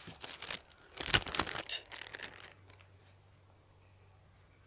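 Plastic meat packaging crinkling and rustling as a raw pork steak is lifted out of it, in a run of short crackles over the first two seconds or so.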